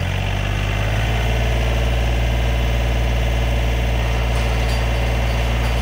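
John Deere compact tractor's diesel engine running steadily, picking up slightly in the first second as the first dig with the 3-point hitch post hole digger begins.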